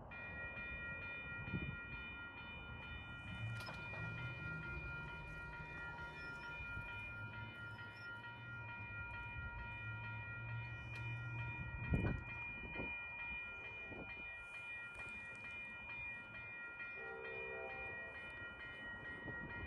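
Freight train moving, with a steady high-pitched squeal of several tones held throughout over a low rumble. A sharp knock comes about twelve seconds in.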